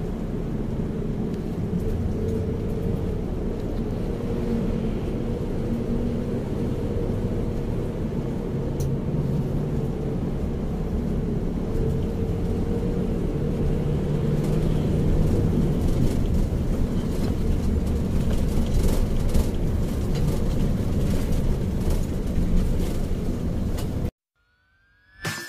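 Bus engine and road noise heard from inside the moving bus, a steady rumble while cruising. It cuts off suddenly near the end.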